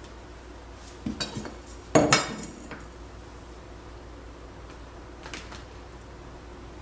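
A metal speed square clattering against the tile hearth as it is picked up and set in place: a few light taps, then a louder double clank with a brief ring about two seconds in, and one faint tap later.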